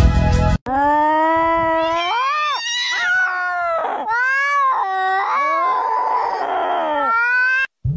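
A domestic cat yowling: a string of long, drawn-out meows whose pitch rises and falls, with short breaks between them.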